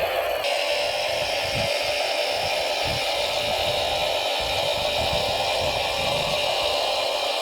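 Steady whine of radio-controlled model vehicles' electric motors and gear drives running, with an abrupt change in tone about half a second in.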